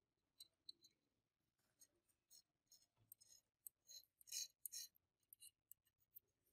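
A flat metal scraper blade scraping thick rust-removing gel off a rusty iron ring: faint, short, wet scrapes and clicks, coming thickest and loudest about four seconds in.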